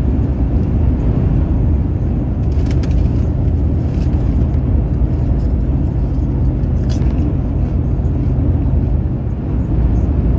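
Steady low rumble of engine and road noise inside the cab of a moving vehicle, with a few faint clicks.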